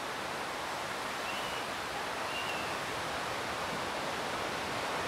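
Steady, even rushing noise with no change in level, with two faint short high tones about one and a half and two and a half seconds in.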